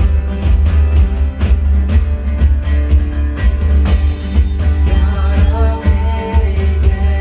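Praise and worship song: strummed guitar over a steady beat with heavy bass. A singing voice comes in about five seconds in.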